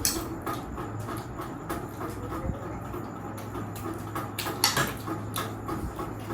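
Close-up eating sounds of noodles being chewed and slurped: irregular wet mouth clicks and smacks over a steady low hum, with one louder smack a little past halfway.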